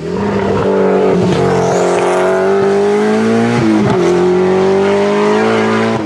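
Peugeot 205 T16 Group B's turbocharged 1,775 cc four-cylinder engine pulling under load, revs climbing steadily, with a quick upshift about three and a half seconds in, after which the revs climb again.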